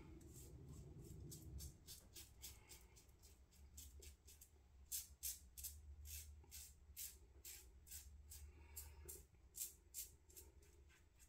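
Parker semi-slant safety razor scraping through lathered stubble on the cheek in quick short strokes: a faint run of crisp scratches, a few a second, on a first pass with the grain.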